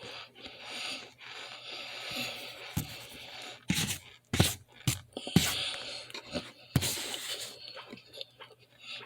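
Close-miked cornstarch being bitten, crunched and chewed: a few sharp crunches in the middle, with stretches of gritty scraping hiss before and after.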